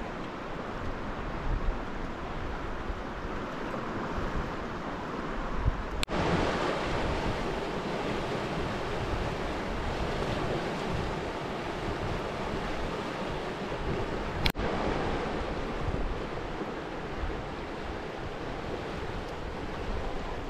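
Steady rushing of a fast river running over rapids, with some wind on the microphone.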